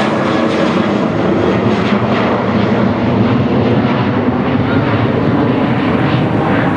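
Boeing 737-800's twin CFM56-7B jet engines during the climb-out after takeoff: loud, steady jet noise, its highest frequencies slowly fading as the airliner moves away.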